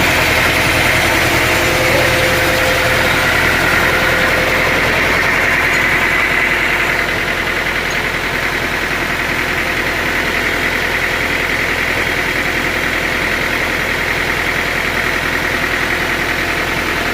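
Sawmill machinery running steadily: a constant engine drone with a high whine over it. It eases off slightly about seven seconds in.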